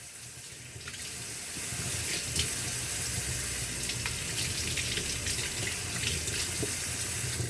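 Water running steadily from a tap into a sink, building up about a second in and cutting off suddenly at the end.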